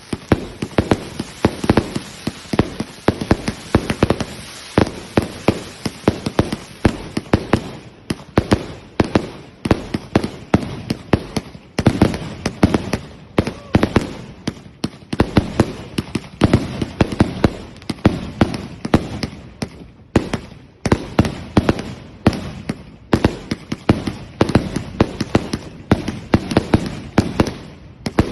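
Fireworks going off in a dense, rapid barrage of sharp bangs and crackles, many per second, with a few brief breaks.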